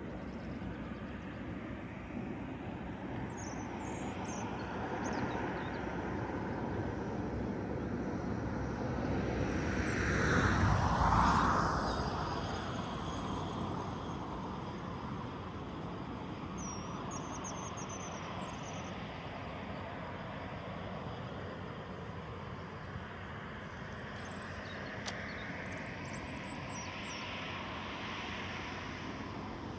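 An engine passing by: a rumble that swells to its loudest about ten seconds in, drops in pitch as it goes past, then fades back to a steady hum. Faint bird chirps come through a few times.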